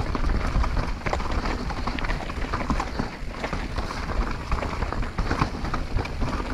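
Mountain bike descending a rough natural singletrack: tyres rolling over dirt and stones, with a constant clatter of short knocks and rattles from the bike and a steady low rumble.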